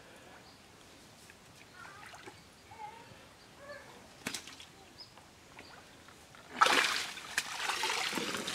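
A wet cast net hauled up out of the water, water splashing and streaming off the mesh; it starts suddenly about two-thirds of the way through and stays loud to the end.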